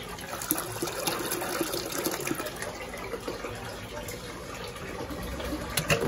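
Water sloshing and splashing in the tub of an Electrolux top-loading washing machine full of clothes during its rinse stage, with a sharp click near the end.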